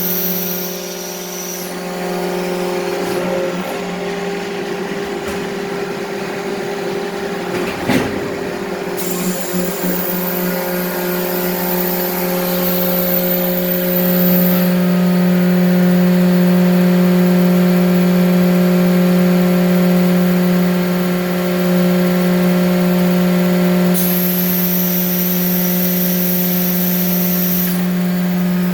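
Bliss 1,000-ton hydraulic forging press cell running: a steady machine hum, a little louder after about fourteen seconds, with a high whine that switches on and off three times and one sharp knock about eight seconds in.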